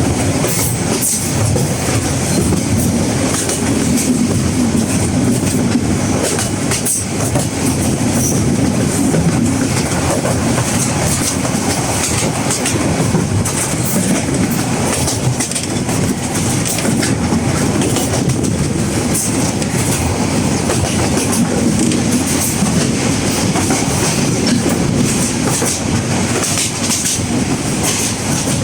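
Moving train running steadily along the rails, its wheels rumbling, with many sharp clicks and clatters from the track; no whistle sounds.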